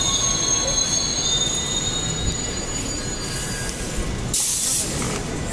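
Transperth B-series electric train braking slowly to a stop at the platform, with high brake squeal over a low rumble that fades out about four seconds in, followed by a short burst of air hiss.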